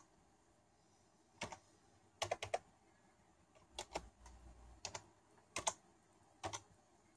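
Faint keystrokes on a standard Windows PC USB keyboard as a command is typed: single key clicks and short runs of two or three, with pauses of a second or so between them.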